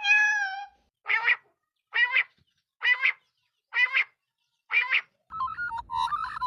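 A bird calling: one drawn-out call held at a single pitch, then five short, harsh calls about a second apart. Near the end a different, busier jumble of quickly changing tones begins.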